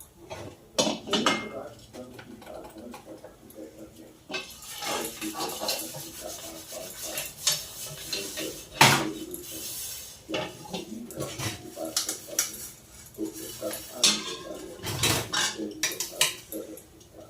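Kitchen utensils clattering: metal pots, plates and spoons clinking and knocking as they are handled, with a stretch of hissing noise in the middle.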